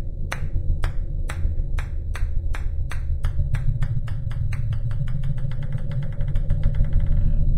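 Table tennis ball bouncing on a wooden floor. The bounces come closer and closer together until they run into a rapid rattle and stop near the end.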